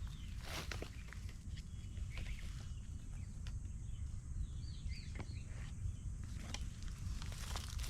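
Scattered crunching and crackling, like steps or handling on a leafy forest floor, over a steady low rumble, with a few short high bird chirps about halfway through.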